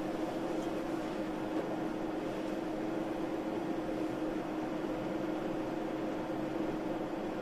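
Steady hum and hiss of room noise with a constant low tone, unchanging throughout.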